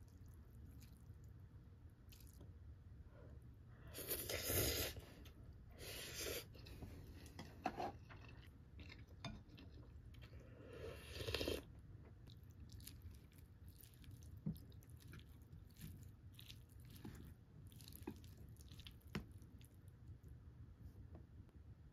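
Close-miked eating of instant ramyeon noodles and a chicken-mayo rice bowl. There are a few loud slurps or sips about four to six seconds in and again around eleven seconds, then chewing with light clicks of chopsticks and a spoon.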